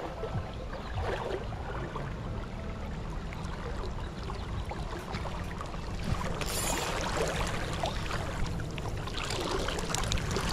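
Steady rush of tailwater river current flowing past, with a low rumble underneath and a brief high hiss about six and a half seconds in.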